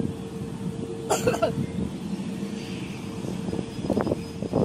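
Distant jet aircraft engine running, a steady hum over low rumble, with a short sharp burst of noise about a second in.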